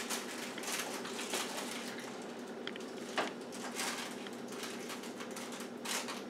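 Quiet, scattered light taps and clicks of a baby's plastic toys knocking on a plastic high-chair tray, a few of them sharper than the rest, over a faint steady room hum.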